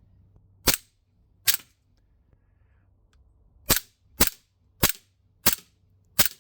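Cybergun Desert Eagle CO2 BB air pistol with blowback firing seven sharp shots: two close together, a pause of about two seconds, then five in quick succession about half a second apart.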